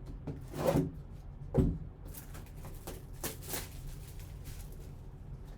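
Handling noises of paper or packaging: short rustles and scrapes, two louder ones in the first two seconds, then fainter scattered rustling.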